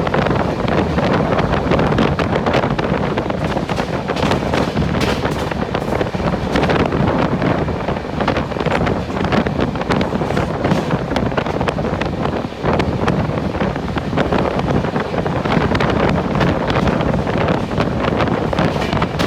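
Wind rushing over the microphone together with the running noise of a moving train, a steady loud rumble with many small knocks and rattles through it.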